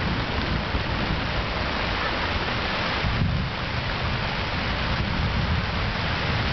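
Steady rain falling on a fabric tent canopy overhead: an even hiss with a low rumble underneath.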